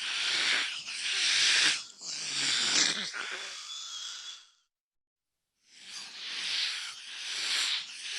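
An animal hissing in a series of long, breathy hisses, with a gap of about a second partway through before the hissing resumes.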